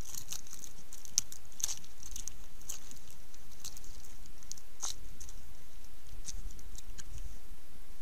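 A snow leopard rubbing its head and body against a tree trunk and shifting in the snow: faint irregular crackling and scratching ticks, thick at first and thinning out about five seconds in, over a steady hiss.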